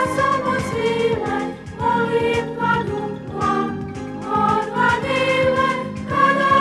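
Children's choir singing a song over an instrumental backing with a steady beat.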